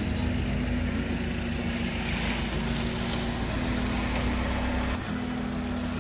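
BMW E46 316ti's four-cylinder engine running with engine-flush additive in its oil, under a steady rushing noise.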